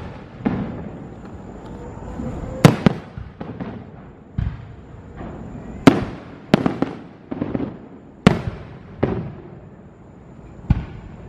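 Aerial fireworks going off: about a dozen sharp bangs at irregular intervals, each echoing briefly as it fades, the loudest coming a few seconds in and again about halfway.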